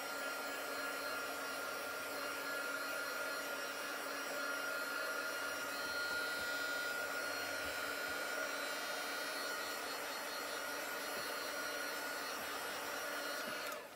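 Handheld craft heat tool blowing steadily, a rush of air with a faint steady whine, drying chalk paste on small round tags. It switches off abruptly near the end.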